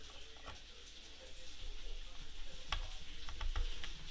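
A small screwdriver turning a screw in a MacBook Air's aluminium bottom panel: a faint scratchy, crackly ticking, with a few sharp clicks and taps on the metal case in the second half.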